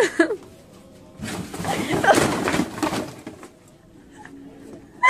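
Cardboard shoe boxes tumbling off a store shelf and spilling onto a hard floor: a clattering crash that lasts about two seconds, starting just over a second in.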